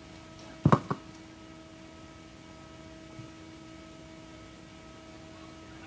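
Steady electrical hum from a PA sound system, with two quick thumps about a second in as the live microphone is handled.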